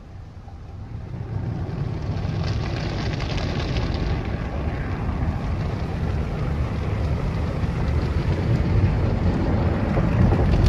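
Peco car wash tunnel's cloth top brush and wraparound brushes scrubbing over the car, heard from inside the cabin as a steady low rushing noise that grows louder about a second in.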